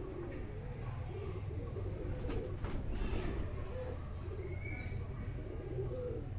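Domestic pigeons cooing, a run of low warbling coos one after another, with a few sharp clicks about two and a half seconds in.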